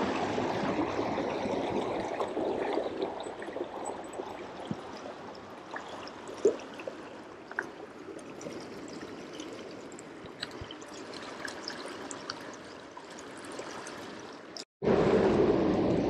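Shallow stream running over rocks: a steady wash of water, louder in the first few seconds, with a few short clicks. It cuts out for an instant near the end, then comes back louder.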